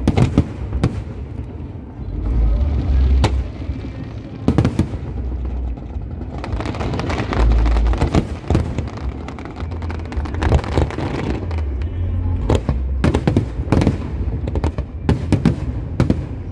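Aerial fireworks shells bursting in rapid, overlapping succession: sharp bangs and deep booms with crackle in between.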